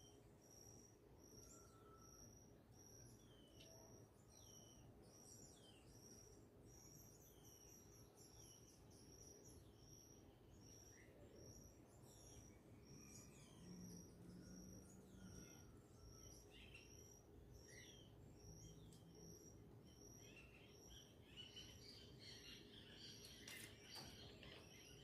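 Faint birdsong: several birds chirping with short falling calls over a steady, regularly repeated high pip, with the chirping growing busier near the end.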